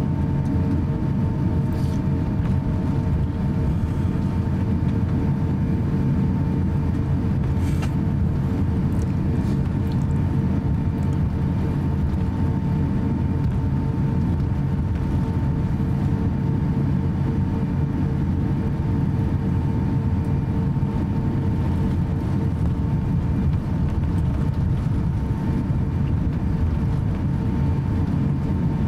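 Cabin noise of an Airbus A350-900 airliner taxiing: a steady low rumble with a steady hum at two pitches over it.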